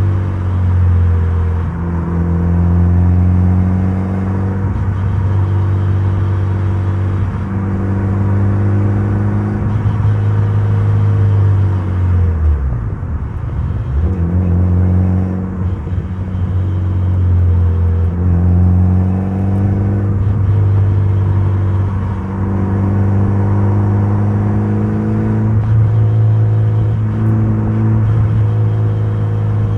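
Mitsubishi Lancer Evolution's turbocharged 2.0-litre 4G63 inline-four running under load on a winding road, its pitch rising and falling repeatedly. About halfway through the note drops away sharply, then climbs again.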